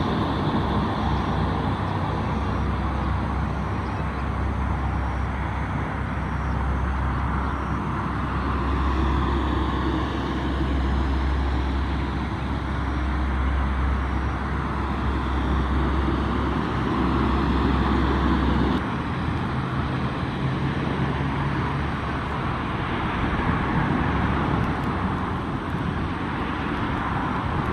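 Lockheed C-130R's Allison T56 turboprop engines running steadily as it taxis with its No.1 engine shut down: a loud, even drone with a deep hum. About two-thirds of the way through the sound cuts abruptly to steady road traffic noise.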